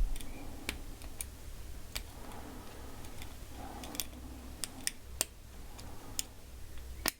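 A homemade steel hook pick raking and lifting the pins of a clear acrylic pin-tumbler lock under tension: scattered small, sharp clicks at an irregular pace, about one or two a second.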